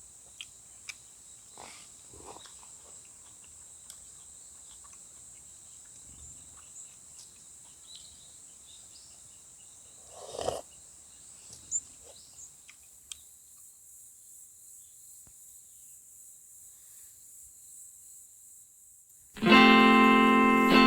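Faint crickets chirping steadily, with scattered light clicks and a louder rustle about ten seconds in. The outdoor sound then drops away, and near the end loud strummed guitar music starts.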